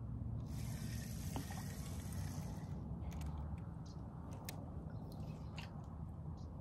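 Wind rumbling on the microphone, with a hiss for about two seconds near the start and a few light clicks later on from a spinning reel being worked.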